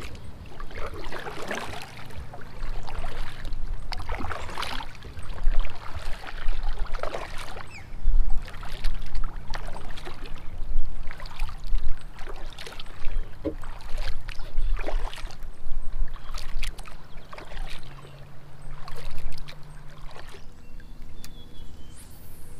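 Double-bladed kayak paddle dipping and pulling through the water, a splashy stroke roughly every second or so over a low steady rumble. The strokes stop near the end.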